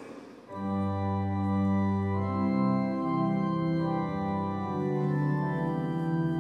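Organ playing slow, sustained chords, starting about half a second in after a brief rustle of noise.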